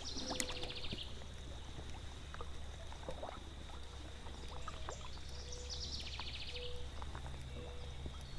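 Faint outdoor creek background of steady running water. A high, rapid trill sounds twice, near the start and about six seconds in, along with a few short low notes and light scattered clicks.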